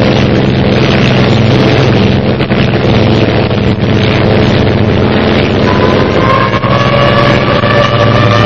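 Cartoon wasps' buzzing drone, made to sound like a formation of aircraft engines, loud and steady; a higher whine that slowly rises in pitch joins about six seconds in.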